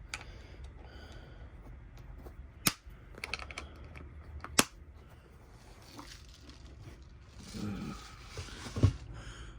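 Small clicks and taps of tiny lock pins and tweezers being picked up and set down on a work surface, with two sharper clicks about three and four and a half seconds in and a soft thump near the end.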